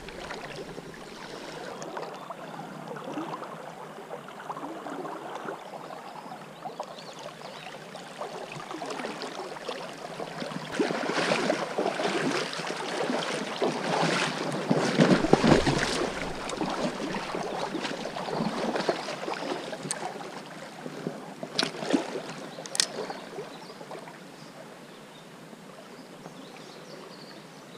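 Water of a mountain river rushing and splashing, louder for several seconds around the middle. Two short sharp clicks come near the end.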